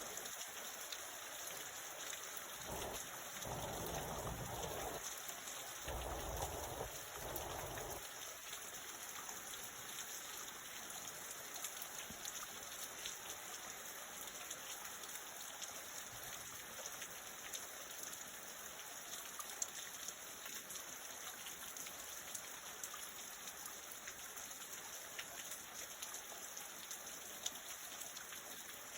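Steady rain falling, an even hiss of patter throughout, with two low rumbles a few seconds in.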